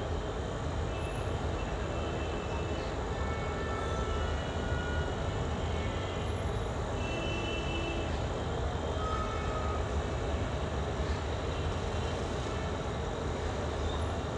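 Steady low rumbling background noise, with a few faint short high tones scattered through it.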